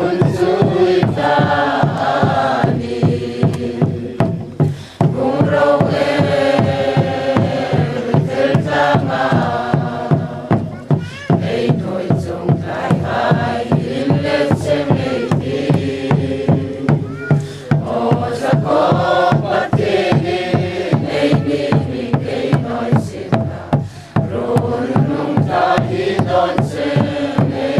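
A large group of men and women singing a hymn together from song sheets, with a regular beat keeping time.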